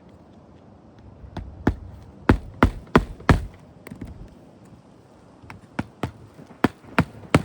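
Hammer driving roofing nails through asphalt shingles: two runs of sharp blows, about five and then about six, roughly three a second, with a pause of about two seconds between them.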